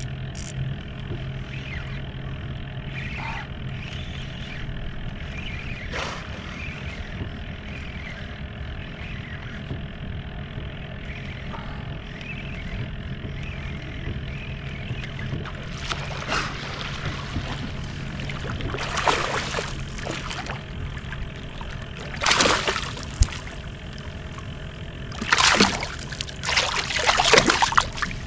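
Water lapping and sloshing against a kayak hull, with several louder splashes in the last third.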